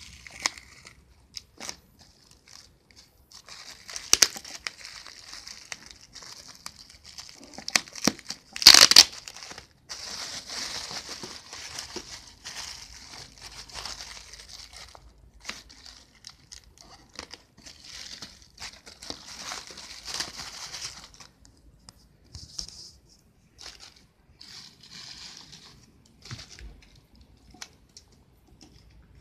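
Clear plastic shrink wrap being torn and peeled off a camera box, crinkling and crackling irregularly, with the loudest sharp crackle about nine seconds in. After about twenty seconds the crinkling thins out to scattered small rustles.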